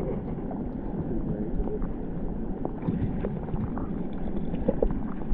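River current heard through a submerged camera: a steady muffled rushing and gurgling, with scattered small clicks and knocks.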